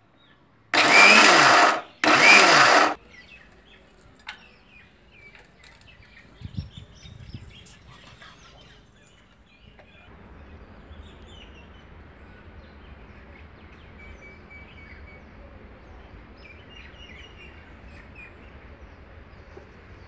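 Electric mixer grinder run in two short pulses of about a second each, grinding soaked yellow split lentils for vada batter. Faint bird chirps follow.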